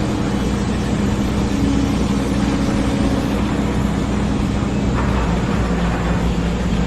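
An engine running steadily, with a low, even hum whose pitch drops slightly about five seconds in.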